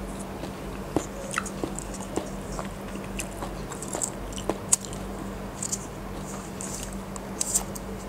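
Close-miked eating sounds: soft chewing with sticky, wet mouth clicks and smacks from a soft Thai dessert, irregular and scattered, over a low steady hum.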